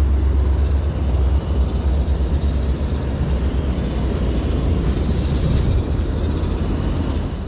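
An RC rock crawler driving over grass and rocks: a steady, heavy low rumble with a faint high electric motor whine that rises and falls slightly about halfway through.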